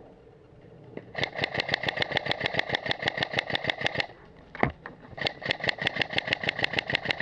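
Automatic electric airsoft gun firing two long full-auto bursts, a rapid, even string of shots with the gearbox's motor whine under them, with a single click between the bursts.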